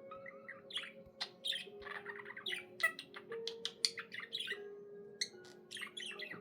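Pet budgerigar chattering and warbling: a rapid, busy string of short chirps, clicks and squawks.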